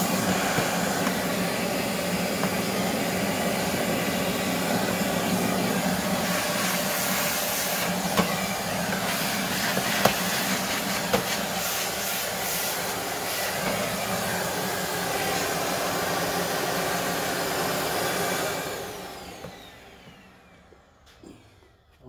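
Bissell Pet Hair Eraser handheld vacuum running steadily while its crevice tool sucks out an empty plastic shop vac canister, with a few sharp knocks as the tool hits the bin. Near the end it is switched off and the motor's whine falls as it spins down.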